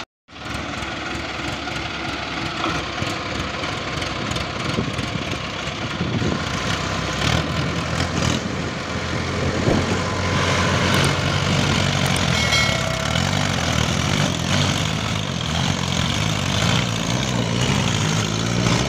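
Mahindra tractors' diesel engines running hard under load as one tows the other out of deep mud, with the engine note wavering and growing louder about halfway through.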